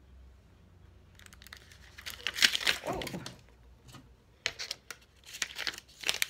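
Plastic packaging crinkling and rustling as it is handled, in several brief bursts, the loudest about two to three seconds in.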